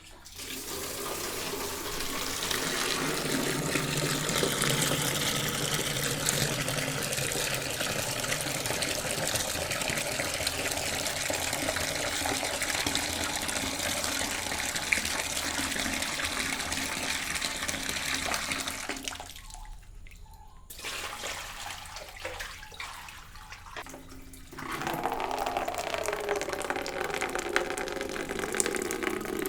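Water tap running in a steady stream. About two-thirds through it cuts off suddenly, flows only weakly for a few seconds, then runs full again.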